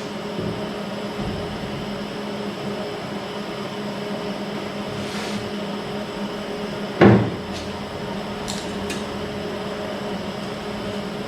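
A single sharp knock about seven seconds in, like a part or tool set down on a bench, with a few faint clicks, over a steady low hum.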